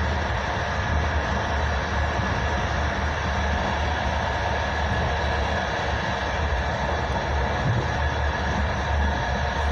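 Steady running noise of a passenger train heard from inside the coach: a low, even rumble of the wheels on the rails with a constant hiss over it, without distinct rail-joint clacks.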